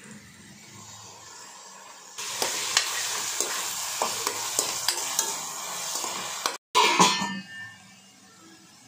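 Chopped onions sizzling in coconut oil and ghee in a stainless steel pan while a spoon stirs and scrapes against the metal, making scattered clicks over a steady hiss. The sizzling starts about two seconds in and cuts off abruptly, followed by a short loud clatter.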